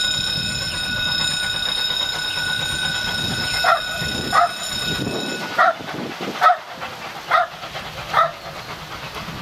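A dog barking, six short single barks spaced a little under a second apart starting about a third of the way in, over low outdoor rumble. A held musical chord fades out under the first barks.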